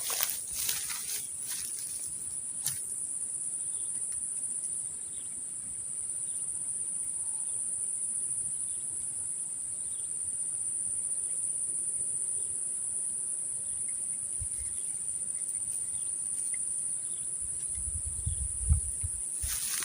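A steady, high-pitched chorus of insects, crickets or similar, running without a break. There are a few sharp clicks in the first few seconds, and low bumps near the end.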